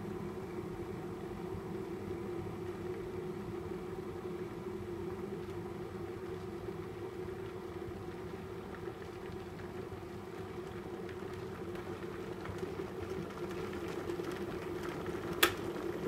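Philips electric kettle heating water near the boil, a steady rushing sound. Near the end comes a single sharp click, the kettle switching itself off.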